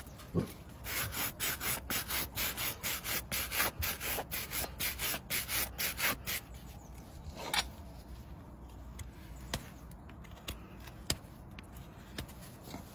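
Quick, even scraping strokes of a hand tool against a horse's hoof, about four a second for some five seconds, as mud is worked off the hoof. The strokes stop, and a single sharp click follows.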